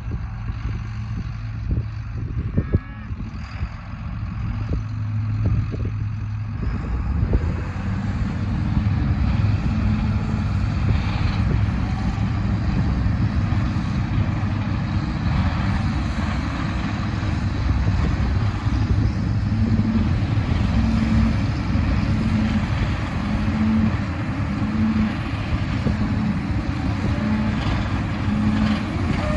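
Tractor engine running steadily with a bale processor shredding and spreading straw. About seven seconds in the sound grows louder and fuller. Near the end a low hum pulses about once a second.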